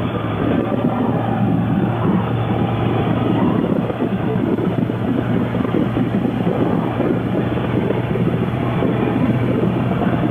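Motorcycle engine running steadily at riding speed, with a low hum under a continuous rush of wind and road noise.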